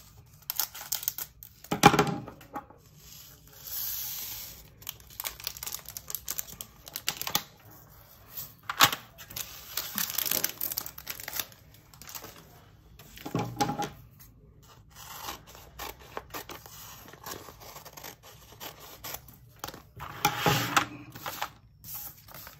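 Craft-bench handling noise: a plastic bag of resin diamond-painting drills snipped open with scissors and the drills poured into a small plastic storage container. Between these come scattered clicks and rustles of plastic bags and containers being handled and set down.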